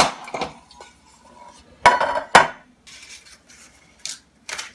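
Metal muffin tins clanking as they are set down and shifted on a wooden countertop: a sharp clank at the start, two louder clanks about two seconds in, and lighter knocks near the end.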